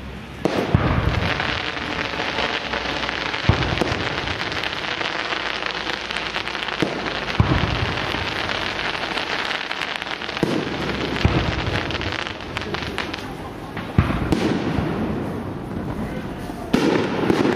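Professional class 4 aerial firework shells bursting overhead: about six loud bangs, roughly every three seconds, each followed by a low rumble, over a steady hiss.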